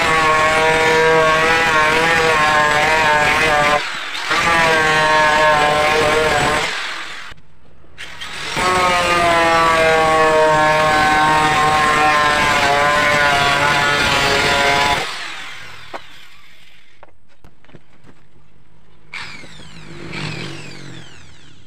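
Handheld angle grinder with a cutting disc cutting through a plywood sheet, its motor whining steadily under load. It runs in three stretches with two short breaks, about 4 and 7 seconds in, and stops about 15 seconds in.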